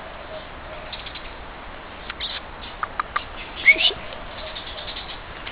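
Steady background hiss with a few short high clicks, and about two-thirds of the way in a brief high chirp that rises in pitch, the loudest sound.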